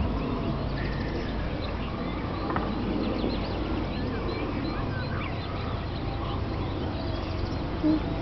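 Outdoor paddock ambience: birds calling in many short chirps over a steady low rumble, with a short louder sound near the end.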